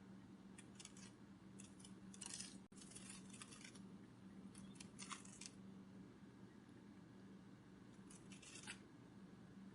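Faint, dry fluttering of butterfly wings, presented as a sound effect: scattered clusters of quick, papery flicks, busiest a couple of seconds in, again around the middle and once more near the end. A low steady hum runs underneath.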